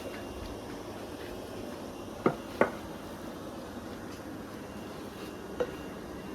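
Steady background hiss with two sharp knocks in quick succession a little over two seconds in, and a fainter knock near the end.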